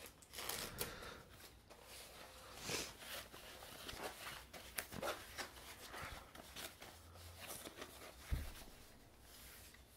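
Faint rustling and crinkling of thick foam packing wrap being handled and unwrapped, with a soft low thump about eight seconds in.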